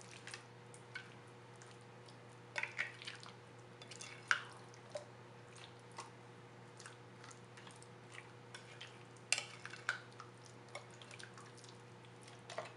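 Metal spoon stirring chicken pieces through a thick yogurt-and-spice marinade in a glass bowl: irregular wet squelches and short clicks of the spoon against the glass, over a faint steady hum.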